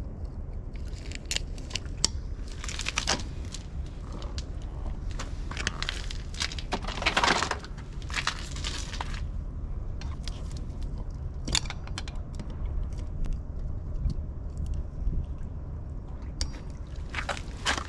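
Metal tools and small parts clinking, clicking and scraping during hands-on engine work, over a steady low rumble.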